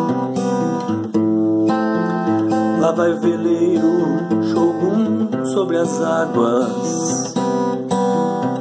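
Acoustic guitar strumming chords in a song's instrumental intro, with a wavering melody line over the strumming from about three to seven seconds in.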